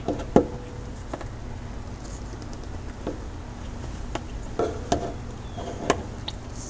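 Scattered light clicks and taps, about eight at irregular intervals, as a turkey baster's tube knocks against the metal oil filter canister and a plastic bowl while oil is drawn out and emptied, over a low steady hum.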